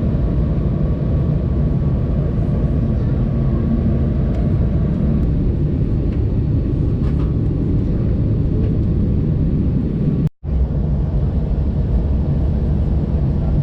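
Steady rumble and hiss of an Airbus A320 airliner's cabin with the engines running, heard from inside the passenger cabin. The sound drops out for an instant about ten seconds in.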